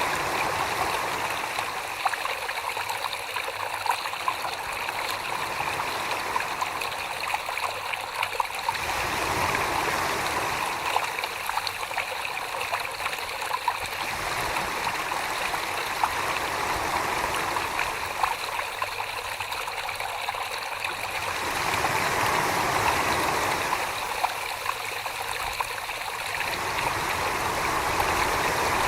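Wet clay being thrown on a spinning potter's wheel: a steady watery swishing and slurping under the hands, with a fuller, deeper wash that swells and fades every five to seven seconds.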